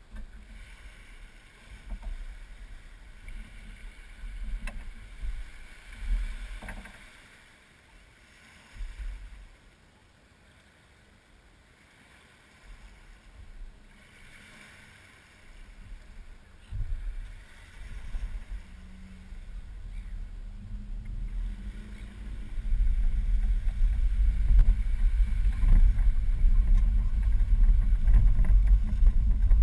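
Boat trailer being towed across the sand by a car, heard from on board the boat: a steady low rumble with wind on the microphone, starting about three quarters of the way in and becoming the loudest sound. Before that, scattered knocks and gusty wind noise as the boat sits on the trailer being made ready.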